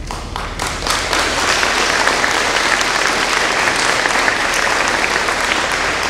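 Audience applauding, the clapping building up over the first second.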